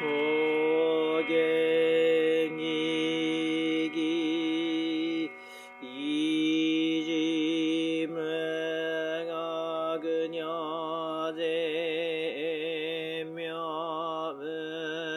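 Buddhist sutra chanting from a Jōdo Shinshū morning service: a single monk's voice holding long, wavering notes on one melodic line, with a brief breath pause about five seconds in.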